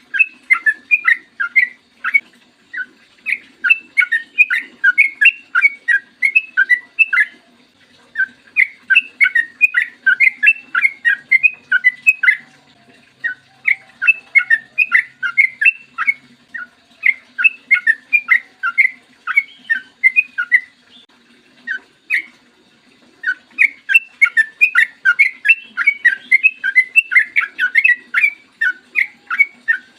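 Yellow-vented bulbul (trucukan) singing long runs of rapid, clear whistled notes, phrases of several seconds broken by short pauses.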